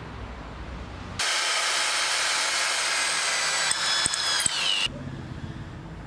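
A loud, steady hiss starts suddenly about a second in, lasts about three and a half seconds and cuts off suddenly, with faint whistling tones that fall in pitch just before it stops.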